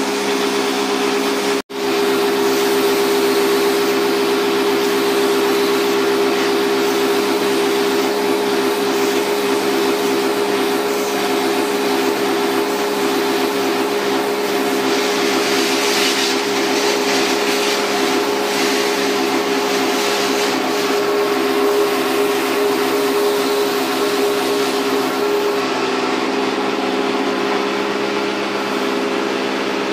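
Small electric pressure washer pump running with a steady, high-pitched hum while water sprays through the lance onto the air conditioner's indoor coil. The sound cuts out for an instant about two seconds in, and the spray hiss grows brighter about halfway through.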